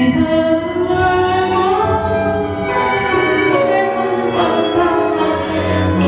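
A woman singing a tango song through a microphone in long, gliding held notes, over instrumental accompaniment with a steady bass line.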